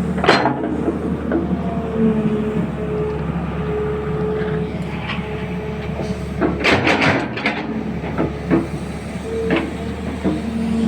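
A machine engine running steadily with a low hum and a tone that comes and goes, over which a few sharp metal clanks and knocks sound, a quick cluster of them about two-thirds of the way through.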